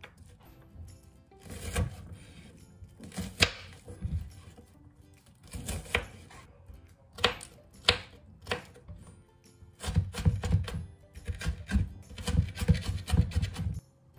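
Kitchen knife chopping an onion on a wooden cutting board: scattered cuts, then a quick run of chops in the last few seconds, over soft background music.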